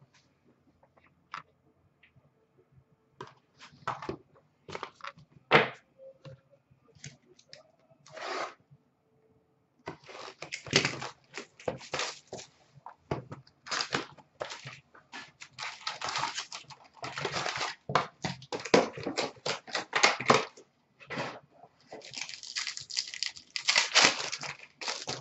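Trading card boxes and packs being handled and opened: a few scattered taps and clicks, then from about ten seconds in a long run of tearing and crinkling as pack wrappers are ripped open and the cards inside are shuffled.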